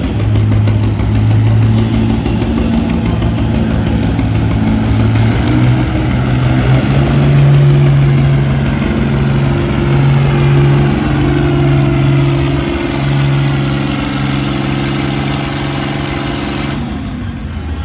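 Farmall 460 tractor engine running hard under load while pulling a weight-transfer sled. Its steady pitch steps up about a third of the way in, holds, and drops away near the end as the pull finishes.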